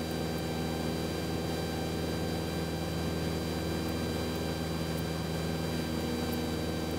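Cessna 172's piston engine and propeller running steadily in cruise flight, a constant even drone heard from inside the cabin.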